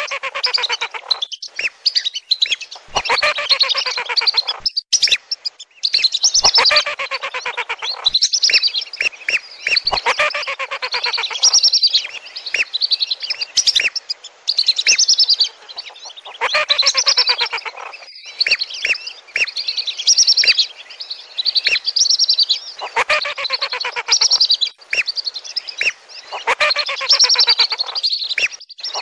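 Whistling duck lure call: the chattering whistles of a flock of lesser and wandering whistling ducks, many calls in quick succession, in dense runs of a second or two with brief dips between them.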